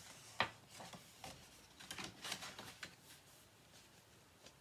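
Faint handling of a paper picture book being closed and turned round in the hands: a light tap about half a second in, then soft rustling of pages and cover.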